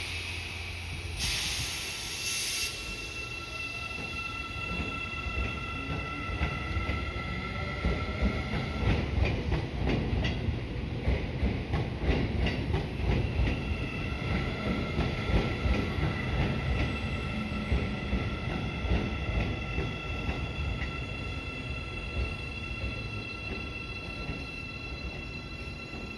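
Electric train passing slowly at close range: its wheels knock over rail joints in an uneven run of clacks, loudest partway through, over a low rumble. A steady high whine of several tones from the train's electrical equipment sounds through most of it, drowned out briefly in the middle.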